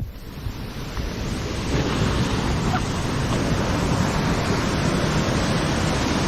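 Steady rushing of a waterfall, a continuous roar of falling water that grows louder about two seconds in.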